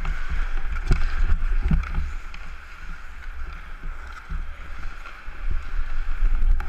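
Ice hockey play heard from a helmet-mounted action camera: skates on the ice and a steady low rumble of wind and movement on the microphone, with a few sharp knocks about one and nearly two seconds in.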